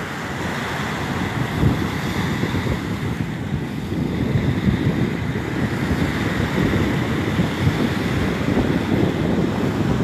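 Wind buffeting a phone's microphone over small waves washing up on a sandy beach, a steady rushing noise with low fluttering from the wind.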